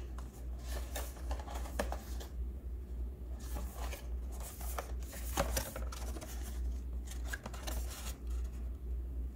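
Paperboard box being opened by hand: the flaps and folded paper rustle and rub, with scattered short scrapes and crinkles, over a steady low hum.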